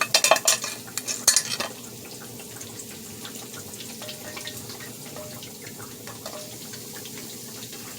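Pork chops sizzling steadily in hot oil in a frying pan, with a utensil clattering against the pan several times in the first second and a half as the chops are lifted out.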